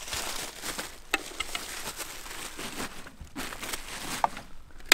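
Light rustling and scattered small clicks of gear being handled.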